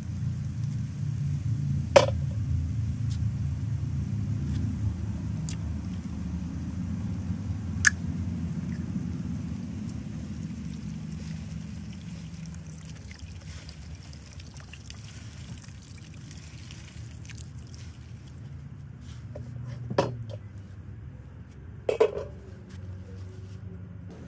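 Coconut water poured from a can into a large aluminium pan of raw chicken and onions, over a low rumble that fades out past the middle. A few sharp clicks in the first half, and near the end a knock and an aluminium pot lid set down with a ringing clank.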